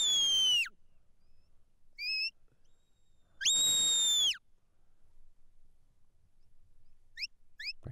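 Sheepdog handler's whistled commands to the working dog: a held note that falls away just after the start, a short rising note about two seconds in, a second long held note that drops at its end, and two quick rising chirps near the end.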